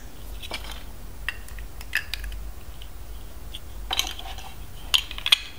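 Plastic LEGO Duplo bricks clicking and clacking as they are pressed together and set down among other bricks, several light clicks a second or so apart.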